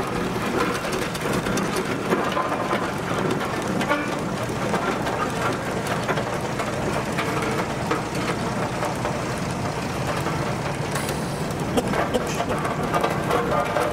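Steam roller driving slowly over gravel: its steam engine working and its iron rolls crunching on the gravel, a steady mechanical noise throughout.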